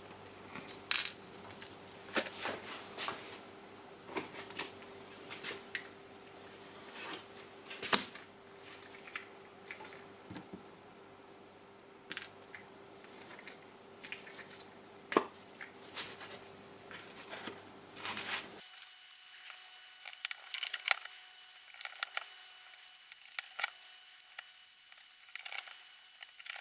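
Irregular small clicks and taps of plastic and metal parts being handled and fitted together while an impact wrench is reassembled.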